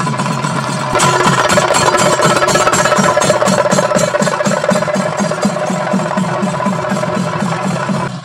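Music with a fast, even drum beat of about four strokes a second under sustained melodic tones; it gets louder about a second in.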